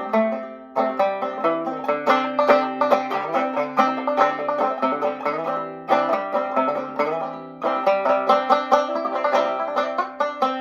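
A 1910s Vega Tubaphone banjo in gCGCD tuning, picked solo in a waltz melody with a steady drone note underneath. Three times a held note rings and fades for a moment before the picking starts again: once near the start, once about halfway and once past the middle.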